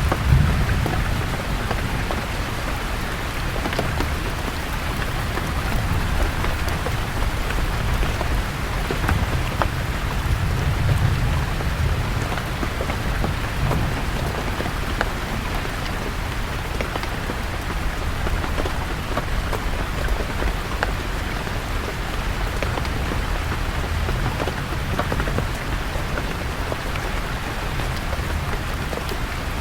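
Steady rain falling, with individual drops ticking through the hiss, and distant thunder rumbling low, swelling at the start and again around ten seconds in.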